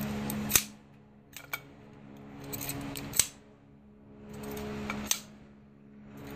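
Safety-wire twist pliers clicking as they clamp and twist steel safety wire between brake rotor-hat bolts. There are a few sharp metallic clicks, with the loudest near the start, in the middle and near the end.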